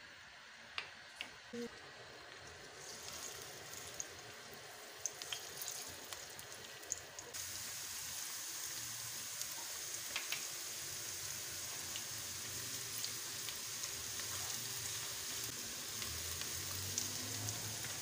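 Chopped garlic sizzling in hot oil in a nonstick pan, the frying starting faint and growing to a steady, louder sizzle about seven seconds in as the oil heats up. A silicone spatula stirring it makes a few light clicks against the pan.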